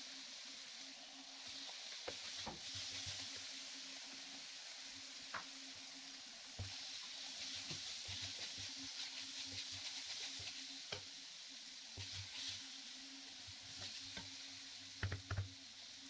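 Chicken strips, spring onions and diced carrots and green pepper sizzling in a non-stick frying pan, stirred with a wooden spatula that scrapes and clicks against the pan. The sizzle swells twice, and two or three sharp knocks near the end are the loudest sounds.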